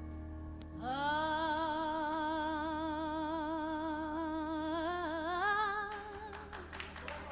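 Music: a woman's voice holds one long note with wide vibrato over a sustained keyboard chord, stepping up a little near the end before fading.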